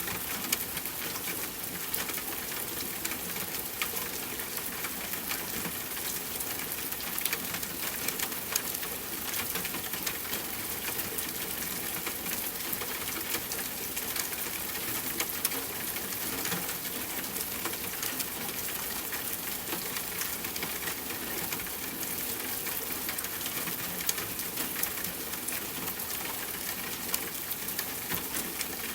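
Steady rainfall: a constant hiss of rain with many separate drops ticking on a surface.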